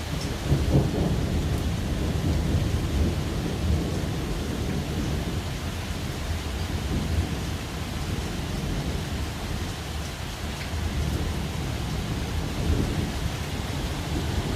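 Thunderstorm: thunder rumbling low and continuously over steady rain, with a louder roll about a second in.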